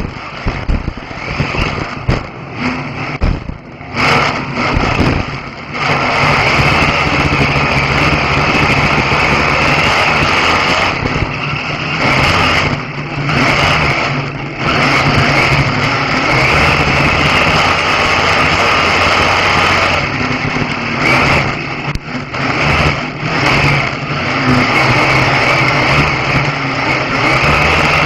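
Stock car racing engine heard from inside the cockpit at race speed. It is choppy and uneven for the first few seconds, then held steady at high revs, with brief dips in the revs several times as the throttle comes off.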